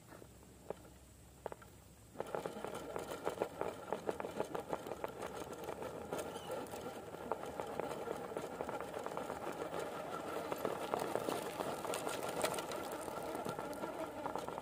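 RC rock crawler's Hobbywing QuicRun Fusion Pro 2300KV brushless motor and geared drivetrain running under load with a steady whine as the crawler climbs rock, over a rapid ticking of the tyres and chassis on the stone. It starts about two seconds in, after a few faint clicks.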